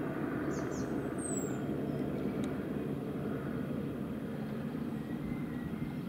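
Bell JetRanger II helicopter flying high overhead: a steady, distant rumble of its rotor and turboshaft engine.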